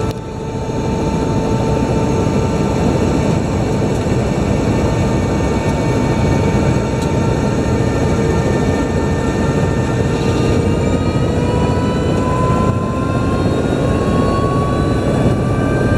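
Helicopter engine and rotor noise: a loud, steady din with a high whine over it. About ten seconds in, the whine starts to rise slowly in pitch.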